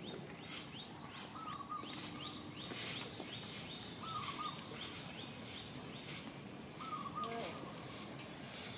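Outdoor bird calls. One bird repeats a short call about every three seconds, and quick faint high chirps run through the first half, over a steady background of high hissing pulses about twice a second.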